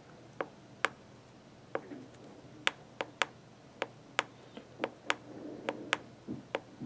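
Key presses on the Raptor ultrasonic thickness gauge's front-panel keypad: a run of sharp, irregular clicks, about one or two a second, as the velocity is stepped to bring the half-inch step reading to 0.500.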